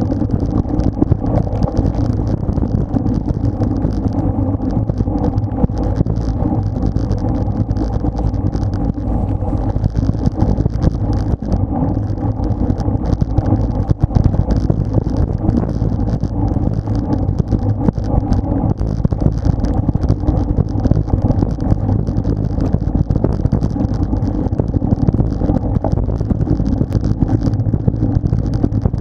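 Wind rushing over the microphone of a bike-mounted action camera at road-racing speed, with a steady hiss from the tyres on the wet road.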